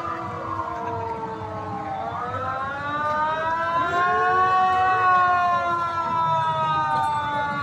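Several sirens wailing at once, their pitches slowly rising and falling out of step with one another.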